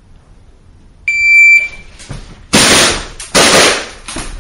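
Electronic shot-timer start beep, a single high tone lasting about half a second, followed by two loud pistol shots about a second apart, each with a long echoing decay.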